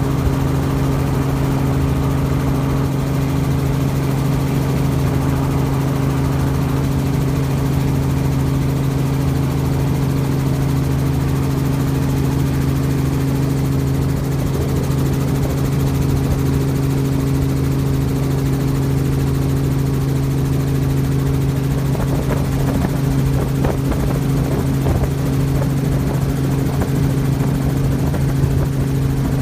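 Helicopter in flight, heard from on board: a steady, unchanging drone of engine and rotor with a constant low hum.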